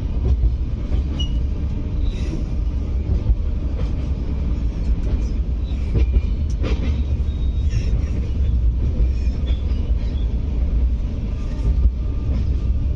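Indian Railways express train running across a river bridge: a steady heavy low rumble of the coaches, with faint scattered clicks and short high squeaks from the wheels on the rails.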